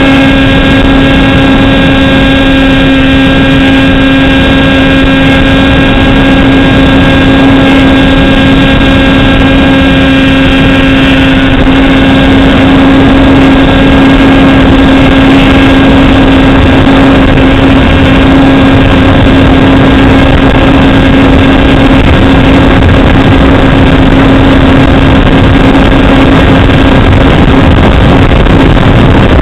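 Motor and propeller of a radio-controlled model plane, heard through its onboard camera's microphone: a loud, steady hum at one pitch over a rush of air noise. The higher overtones of the hum fade somewhat about eleven seconds in.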